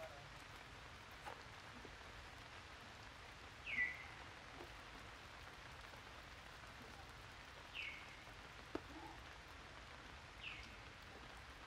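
Steady soft hiss of light rain in wet forest. A short, high call that falls in pitch comes about four seconds in and twice more later.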